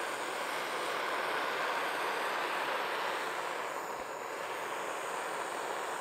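Cartridge-mounted butane gas torch burning with a steady hiss as its flame scorches the bare wood of a box, easing slightly about four seconds in.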